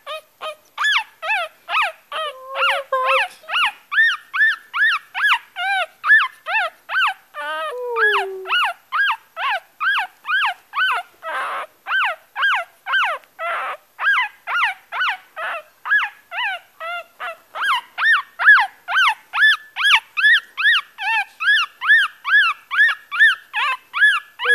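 Yorkshire terrier puppy crying: a long, fast run of short, high-pitched squeals, about two to three a second, each rising and then falling in pitch.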